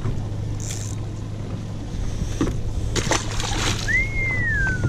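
Water splashing at the surface beside a boat hull, twice, over a steady low motor hum. Near the end comes a single whistle that rises briefly and then slides down in pitch.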